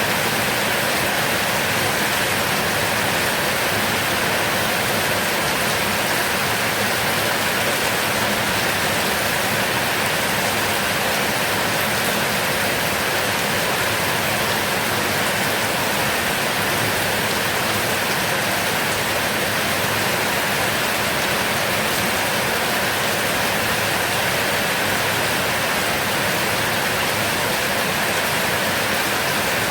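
Heavy rain falling in a steady, dense hiss, with no thunder or single drops standing out.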